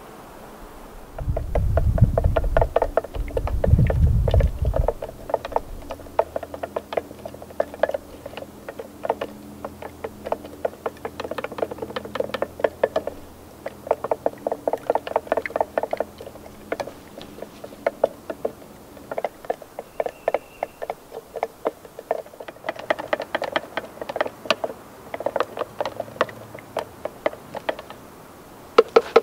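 A stick stirring glaze-coat finish in a clear plastic mixing container, making quick repeated clicks and scrapes against the container's sides in bursts. There is a low rumble in the first few seconds.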